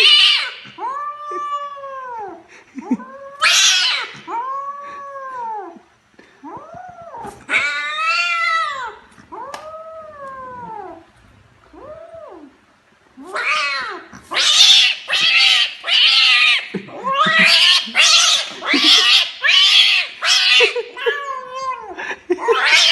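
Domestic cat yowling and caterwauling over and over: a string of drawn-out meows that rise then fall in pitch, broken by harsher, screechier yowls that come thick and fast in the second half.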